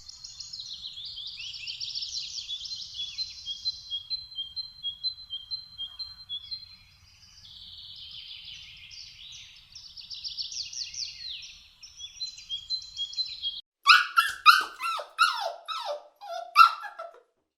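A small bird twittering in rapid high chirps and short trills for about thirteen seconds, then a dog giving about ten quick, high yelps, each falling in pitch and louder than the birdsong.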